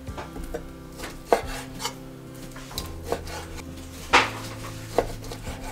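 Chef's knife slicing braised pork belly on a wooden cutting board. About five irregular sharp knocks of the blade against the board sound as each slice goes through, the loudest about four seconds in.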